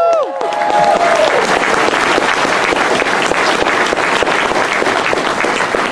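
A large audience clapping steadily. A held "woo" cheer cuts off just after the start, and a few more whoops sound in the first second or so.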